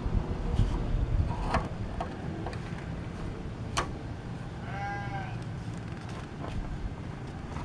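A single short bleat from a farm animal about five seconds in, over a steady low outdoor rumble. A few sharp knocks and clicks come earlier, near the start and around a second and a half and four seconds in.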